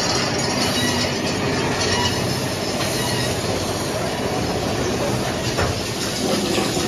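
Big Thunder Mountain Railroad's mine-train roller coaster running along its track, heard from a seat on the train: steady wheel and track noise.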